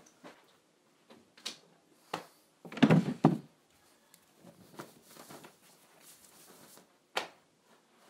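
Scattered knocks and rustling of someone handling things in a small room, with a louder cluster of clattering thuds about three seconds in as a wooden dresser drawer is worked. A few single sharp knocks follow.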